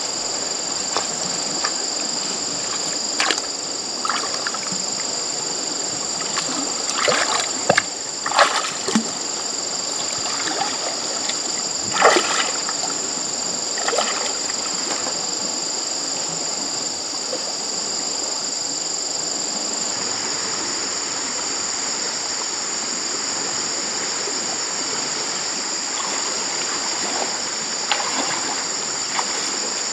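Water splashing and sloshing as a person wades through shallow, muddy stream water, with a cluster of louder splashes about a quarter to halfway in. Underneath runs a steady, high-pitched insect drone.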